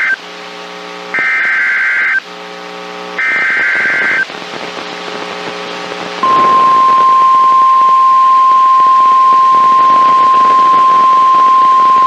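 NOAA Weather Radio emergency alert tones, received through a TFT EAS 911 decoder. The last of one SAME header data burst is followed by two more one-second bursts about a second apart, with a low buzz between them. About six seconds in, the steady 1050 Hz weather alert tone starts and holds. This is the signalling that opens a new warning broadcast.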